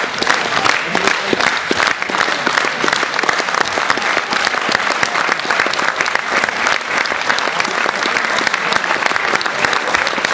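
Theatre audience applauding steadily, a dense mass of hand claps.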